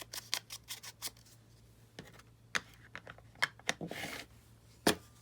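Scissors cutting scrapbook paper: a run of short snips, quick at first and then spaced out, with a brief paper rustle and one sharper click near the end.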